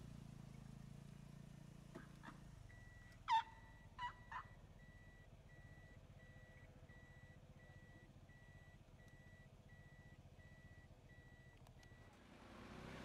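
Mostly quiet, with a low vehicle rumble fading away in the first couple of seconds. A little over three seconds in come three short animal calls close together, the first the loudest and falling in pitch, and a faint evenly pulsing high tone runs in the background.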